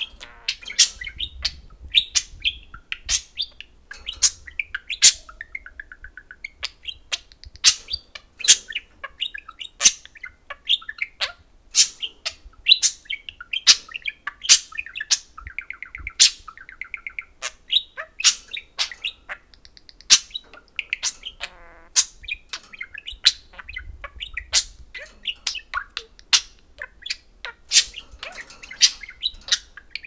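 Budgerigars chirping and warbling: a steady run of short, sharp, high chirps, several a second, broken by stretches of quicker warbling chatter.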